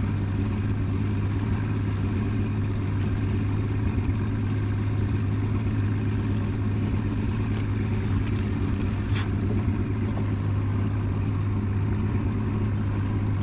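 Boat motor running steadily, a low even drone, with a couple of faint clicks partway through.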